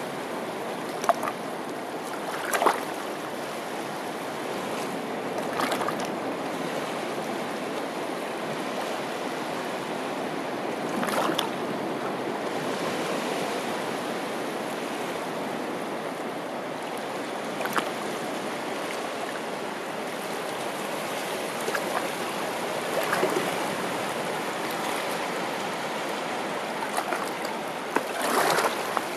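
Small sea waves lapping and washing over rocks at the water's edge: a steady wash of water, with a brief splash every few seconds.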